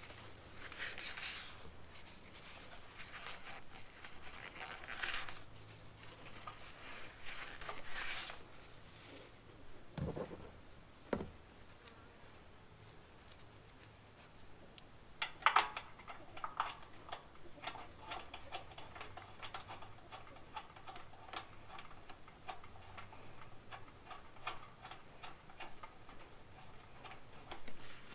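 Faint rustling of a shop towel wiping an engine oil drain plug, two soft knocks, then a run of light clicks and scrapes as the plug with its crush washer is handled and threaded back into the Kohler engine's oil pan by hand.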